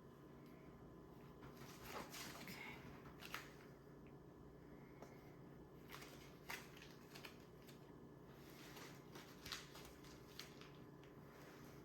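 Near silence: faint steady room hum, with a few soft clicks and rustles of hands handling things at a kitchen counter.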